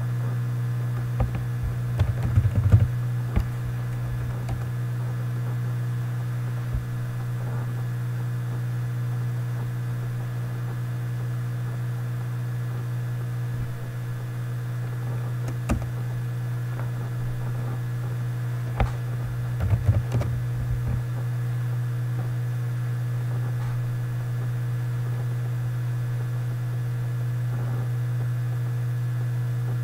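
Typing on a computer keyboard in two short flurries, about two seconds in and again about twenty seconds in, with a few single key or mouse clicks between, over a steady low electrical hum.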